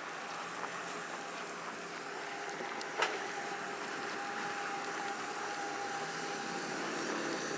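Steady vehicle traffic noise, with a sharp click about three seconds in and a faint steady tone for a few seconds after it.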